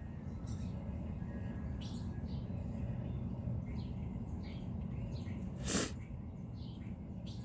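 A person sniffles once, loudly and briefly, about six seconds in: a congested, sick nose. Around it, small birds give scattered short chirps over a low steady background hum.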